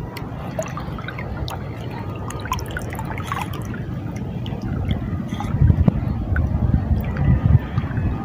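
Small waves lapping and splashing with irregular little drips and slaps, over wind rumbling on the microphone that grows gustier about halfway through.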